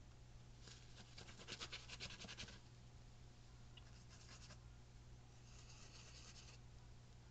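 Paintbrush bristles scratching in three short bouts, the longest about a second in, over a low steady hum.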